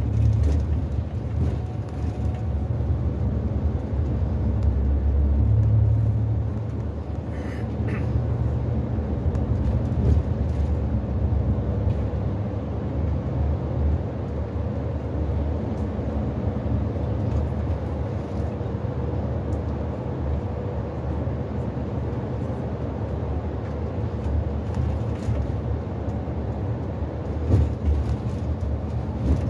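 Cabin noise of a FlixBus coach driving at speed: a steady low engine and road rumble with tyre hiss, and a few brief clicks or rattles.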